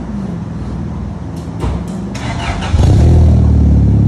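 Turbocharged Honda F20B four-cylinder running through a 3-inch mandrel-bent exhaust and Magnaflow muffler, heard at the tailpipe. It runs steadily, with a few light clicks, then about three seconds in it jumps suddenly louder and holds there.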